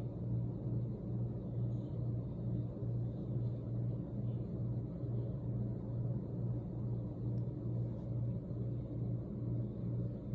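Steady low mechanical hum that pulses evenly about twice a second.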